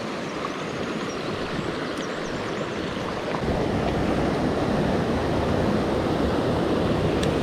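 Mountain stream water rushing steadily over rocks, getting louder about three and a half seconds in.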